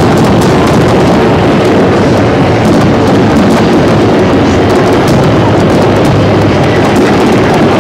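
A fireworks display in full barrage: shells bursting and crackling one over another in a loud, continuous rumble, with many sharp crackles on top.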